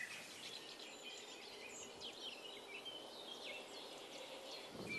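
Faint birdsong: scattered short chirps and whistles from birds over a quiet outdoor background hiss.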